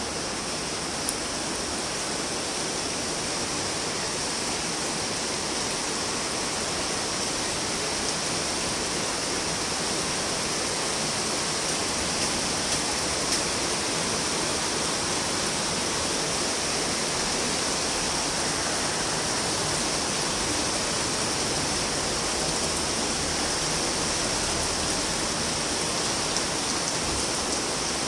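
Steady rain falling, an even hiss with a few sharp ticks of single drops now and then.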